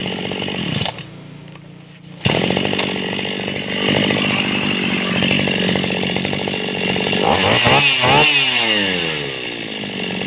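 Small two-stroke engine of a freshly repaired chainsaw or grass cutter running steadily, which the mechanic calls easy to start and very smooth. It drops quieter briefly about a second in, then revs up and back down once near the end.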